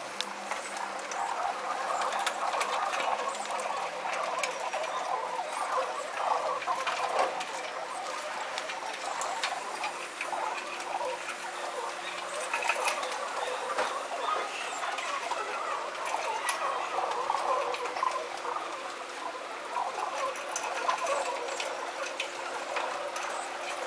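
Feral pigeons feeding and jostling on a concrete ledge: a steady patter of many small quick clicks, with a busy scratchy chatter over it.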